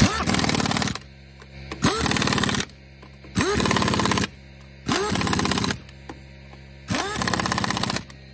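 Pneumatic impact wrench run in five short bursts, rattling lug nuts back onto a wheel's studs; each burst opens with a rising whine as the air motor spins up, then rapid hammering.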